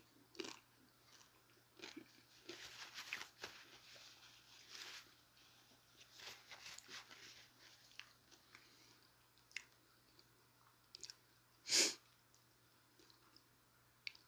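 Faint close-up chewing and crunching of a chicken taco in short bouts, with scattered small clicks. One louder, short, sharp noise comes about twelve seconds in.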